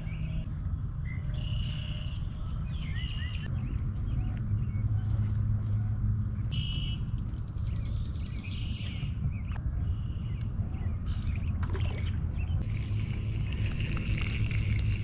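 Small birds chirping and twittering on and off, including a quick run of falling chirps about halfway through, over a steady low rumble.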